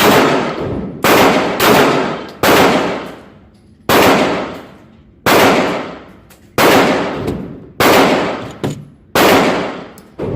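Pistol shots fired in steady succession, about one a second, each with a long echoing tail; roughly nine shots in all, one smaller report just before the last.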